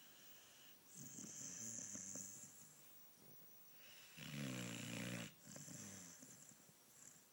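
Sleeping pit bull snoring: a softer snore about a second in, a louder one about four seconds in that cuts off abruptly, then a fainter one after it.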